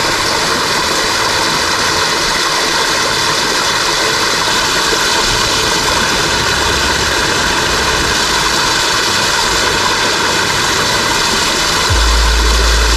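Small woodland waterfall pouring into its plunge pool: a steady rush of falling water. A low rumble joins near the end.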